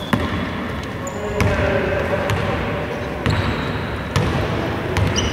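A basketball bouncing on a hardwood court in a large hall, a few separate bounces about a second or two apart, with brief shoe squeaks.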